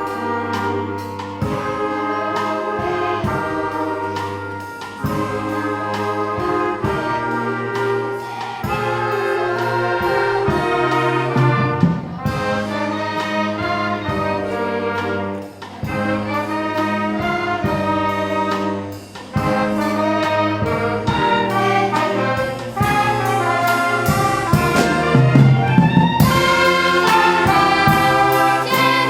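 Ensemble music led by brass instruments, trumpets and trombones playing sustained melodic phrases, with short breaks between phrases and a louder, fuller passage near the end.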